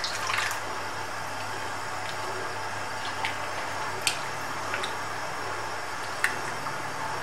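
Wooden spoon stirring milk thickening with custard in a pan on the stove, over a steady hiss, with a few light clicks of the spoon against the pan.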